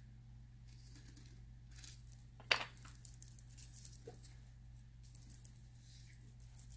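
Small hard clicks and taps of nail-stamping tools and a nail-polish bottle being handled and set down on a table: a sharp click about two seconds in, another half a second later, then scattered lighter ticks.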